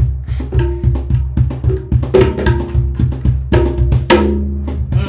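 Small child playing a tabla pair with his hands: a quick, uneven run of slaps and ringing strokes on the wooden treble drum and the metal bass drum, some strokes sounding on as a short pitched tone. A steady low hum runs underneath.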